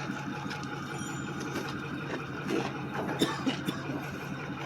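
Vehicle engine idling steadily, with a few light clicks and knocks about three seconds in.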